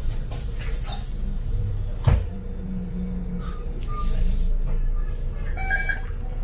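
City bus running, heard from on board: a steady low engine and road rumble, with a sharp knock about two seconds in and several short hisses.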